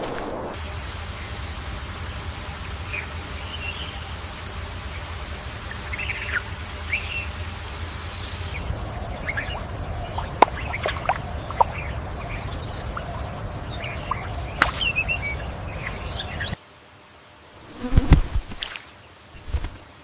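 Rainforest ambience: a steady insect buzz with a high whine, and short bird chirps scattered over it. It changes at a cut a little after halfway, then drops abruptly to a quieter bed with a few louder rustling, wing-flap-like sounds near the end.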